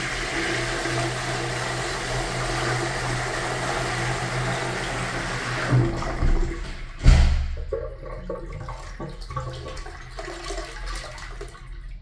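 An American Standard wall-hung washdown toilet flushing from its push button: rushing water fills the bowl for about six seconds, ending in gulps and a heavy thump about seven seconds in. A quieter trickle of water follows as the bowl refills.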